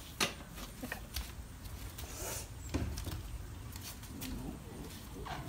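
Light scattered clicks and knocks of die-cast toy monster trucks being handled and set down on a round plastic play ring, the sharpest click just after the start.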